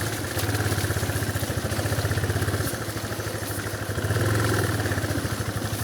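Yamaha motorcycle engine idling with an even, rapid beat, picking up a little about four seconds in. Its engine is caked with mud, which the rider says was holding it back.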